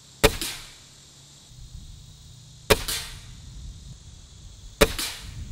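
Gamo Wildcat Whisper .177 air rifle fired three times, each shot a sharp crack that dies away quickly. About two to two and a half seconds pass between shots. These are its first shots through a newly mounted scope.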